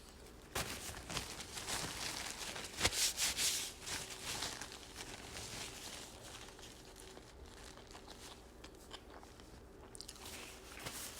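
Close-miked biting and chewing of a big mouthful of toasted sub sandwich, with crisp crunching. It starts about half a second in, is loudest around three seconds, and thins to quieter chewing, with a few more crunches near the end.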